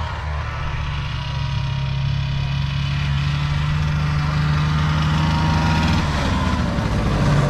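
1973 Ski-Doo Olympique snowmobile's two-stroke engine running as the sled drives closer, growing louder; near the end the engine note drops as it slows.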